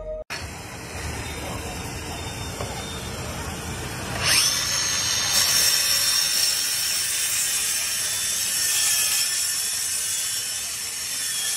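Bosch PROFACTOR cordless track saw spinning up about four seconds in, then running at speed with a steady high whine as it cuts along its guide rail through plywood. Before the spin-up there is a steady running machine noise.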